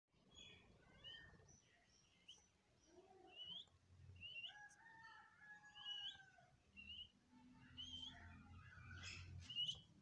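Budgerigars chirping softly: short rising chirps about once a second, with a longer warbling phrase in the middle.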